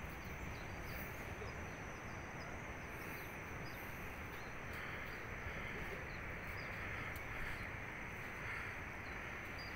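Quiet outdoor ambience: a steady hiss with small birds chirping faintly and now and then.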